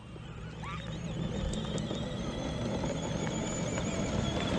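Small battery-powered ride-on vehicles, a motorized cooler with an 800-watt electric motor and children's electric ride-on toys, driving over gravel toward the listener. Tyres crunch on the gravel and there is a thin high whine, growing steadily louder.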